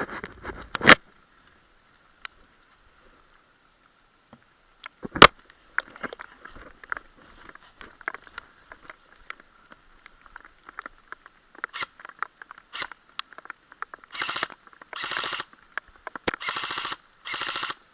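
Airsoft electric rifles firing: scattered sharp single cracks and knocks, then four short full-auto bursts in quick succession near the end.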